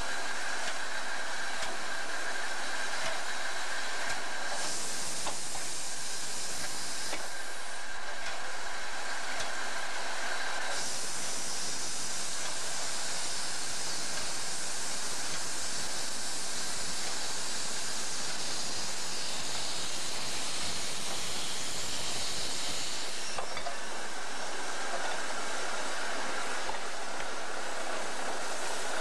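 Narrow-gauge steam locomotive hissing as steam vents from its cylinder drain cocks, with two long louder blasts of steam, one of a few seconds and one of about twelve seconds, over a steady high tone.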